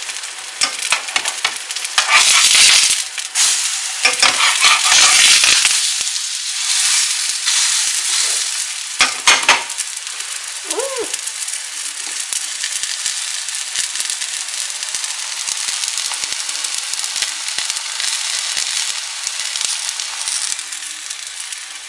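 Kimchi pancake batter sizzling in hot oil in a frying pan. The sizzle spurts louder a couple of seconds in and again around nine seconds in, then settles into a steady sizzle.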